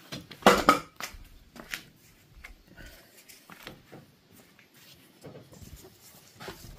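Handling noises of parts being worked by hand: scattered clicks, knocks and light rattles, with a louder clatter about half a second in.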